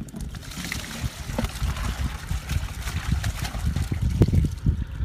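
Water pouring and trickling out of the neck of a large plastic water jug into a plastic bucket, over a strong uneven low rumble of wind on the microphone.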